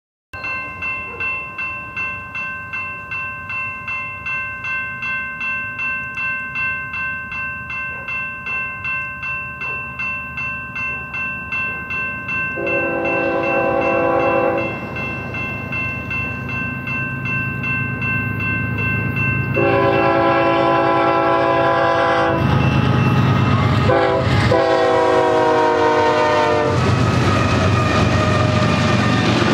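Grade-crossing warning bells ringing about twice a second as a BNSF diesel freight train approaches. The locomotive's multi-chime horn sounds the crossing signal: two long blasts, a short one and a final long one that slides slightly lower in pitch as it passes. The train's rumble grows loud near the end.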